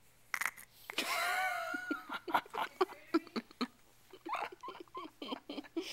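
A sleeping baby's single breathy, wavering snore, about a second long, about a second in. It is followed by a few seconds of quiet, stifled laughter in short bursts.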